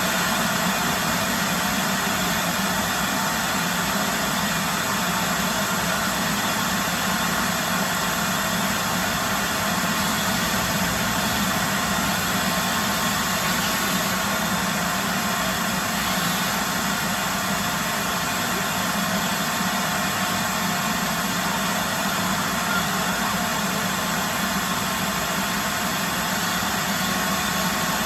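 A 4-gallon shop vac running steadily while vacuuming, a constant rushing air noise with a faint steady hum.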